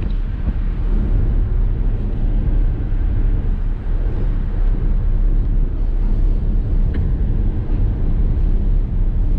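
Steady, loud low engine rumble with a faint steady whine above it and a single small click about seven seconds in.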